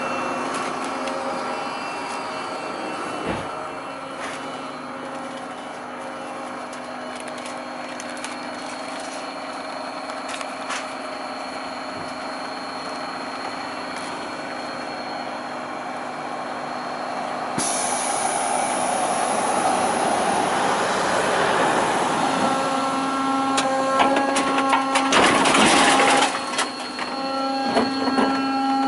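Hydraulic bin lifter and its electric pump on a battery-electric Manco ElectriCat 8.0 rear-load rubbish truck, with steady machine tones running throughout. A hiss cuts in suddenly a little past halfway. Near the end the pump note grows louder as the lifter raises two wheelie bins, with a loud rattling burst as the bins tip.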